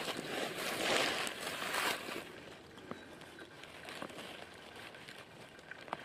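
A spade digging into forest soil and leaf litter: a few noisy strokes in the first two seconds, then fainter with scattered small clicks.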